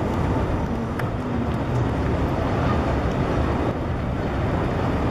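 Alstom Citadis low-floor tram rolling slowly along street track, heard under a steady low rumble of city street noise.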